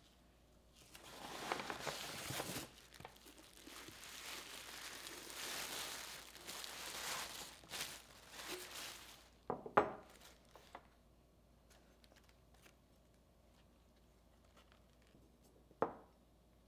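Brown kraft paper crinkling and rustling for about eight seconds as a gift is unwrapped, then a few light knocks, and near the end one sharp knock as a ceramic figurine is set down on a wooden table.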